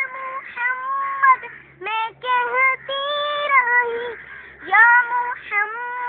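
Children singing a song in high voices, holding long notes in phrases with short breaks between them.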